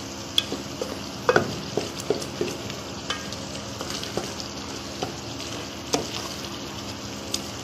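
Wooden spoon stirring chicken in a thick onion-tomato masala in a metal pot on the stove, the masala sizzling steadily as yogurt is mixed in, with irregular knocks and scrapes of the spoon against the pot.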